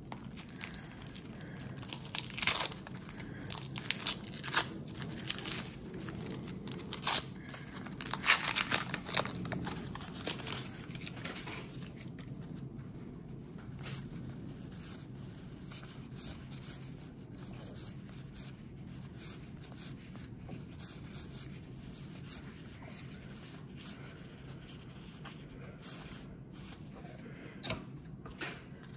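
A 1991 Donruss baseball card wax pack being torn open: the paper wrapper crackles and rips in a quick run of sharp tears for about the first ten seconds. After that there are only faint rustles and clicks as the cards are thumbed through, with a brief crinkle near the end.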